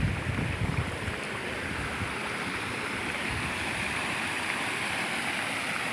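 Steady rush of a muddy, swollen river pouring over and around rocks, with a few low thumps in the first second.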